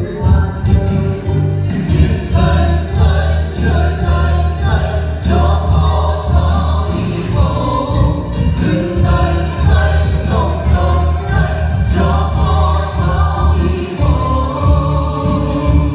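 Music: a song sung by a group of voices over backing music with a steady bass.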